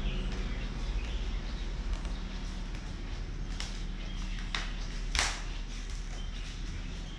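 Footsteps on a wooden floor with a low rumble of camera handling as the camera is carried through the house, and three sharp knocks in the middle, the last the loudest.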